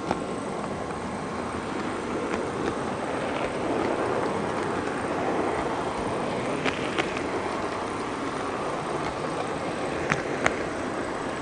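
HO-scale (16番 gauge, 1/80) model train running along its track, heard from a camera riding on the train: a steady rumble of motor and wheels, with sharp clicks from time to time, some in pairs.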